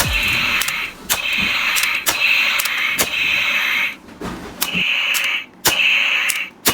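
Toy rubber-band rifle's electronic gunfire sound effect from its small built-in speaker: several bursts of harsh hissing noise with short gaps between them, and sharp clicks in between.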